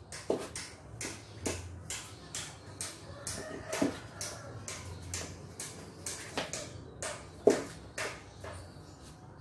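A cut car tyre being bent and folded by hand and foot: irregular knocks and rubbing of the rubber flexing and hitting the tile floor, with one louder knock about seven seconds in.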